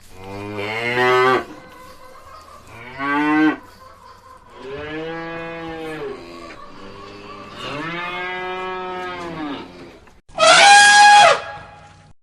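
Cow mooing four times in long, low calls that rise and fall. Near the end comes one much louder, higher-pitched call from a different source, held steady and dropping off at its close.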